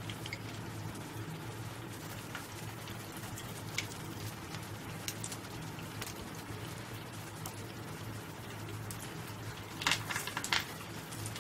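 Nuggets deep-frying in hot oil in a kadai: a steady crackling sizzle with scattered pops. A short burst of louder crackling comes about ten seconds in.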